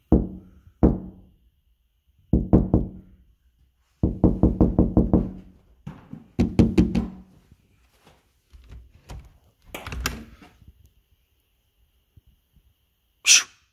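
A series of sharp knocks with a low ringing tone. Two single knocks come first, then quick runs of several, the longest about eight knocks in a second and a half, then fainter ones and a dull thud. A short sharp high-pitched sound comes near the end.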